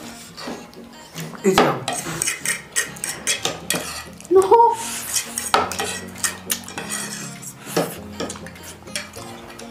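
Metal spoon and fork clinking and scraping against ceramic plates as two people eat noodles, with many short sharp clicks and a short rising squeak about four and a half seconds in.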